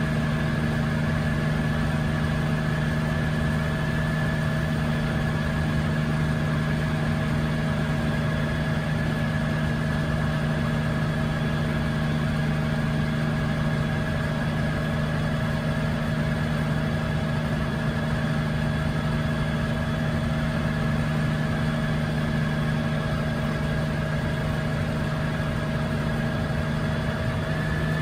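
1962 Hiller UH-12E helicopter in steady cruise flight, its Lycoming VO-540 six-cylinder piston engine and rotor heard from inside the cockpit. The result is an unchanging drone with a few held tones.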